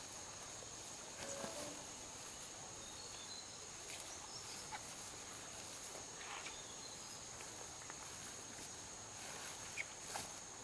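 Steady high-pitched insect drone with a few soft rustles and light knocks as woven plastic sacks are handled on a plastic sheet.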